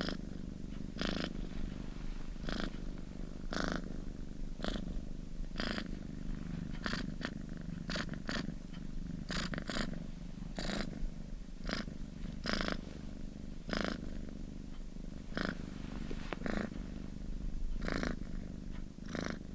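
Domestic cat purring: a steady low rumble, with short crackly noises roughly once a second.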